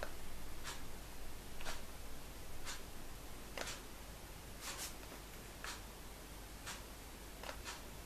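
Crimping iron clamping down a strand of hair, its plates pressed shut and released in turn, giving a short soft click or scrape about once a second.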